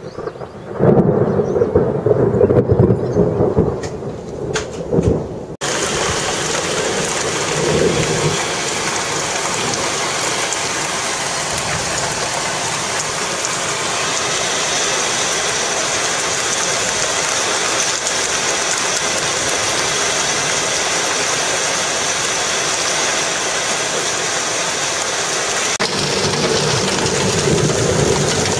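Thunder rumbling loudly for about five seconds, then an abrupt change to heavy rain pouring steadily. A low rumble returns under the rain near the end.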